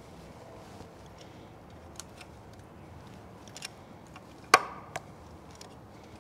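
Small metal clicks from a hand tool working at a CAT C15's front crankshaft seal while the seal is being pried loose, with one sharp metallic clack that rings briefly about four and a half seconds in and a smaller click just after.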